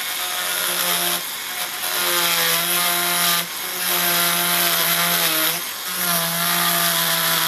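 Handheld rotary tool with a small cut-off wheel running and cutting a narrow slot into a wooden lure body. A steady motor whine with cutting hiss, in about four passes broken by brief pauses.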